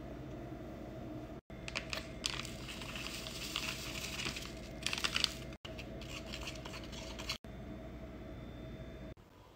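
A drink-mix packet crinkling and rustling as powder is shaken out of it into a cup, loudest around the middle and lighter again after a short break, over a steady low hum.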